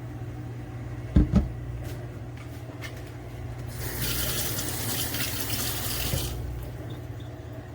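Two sharp knocks about a second in, then liquid pouring for about two and a half seconds, over a steady low hum.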